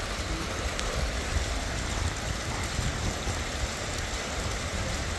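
Small fountain jets splashing steadily into a pool, an even watery hiss, with an uneven low rumble of wind on the microphone underneath.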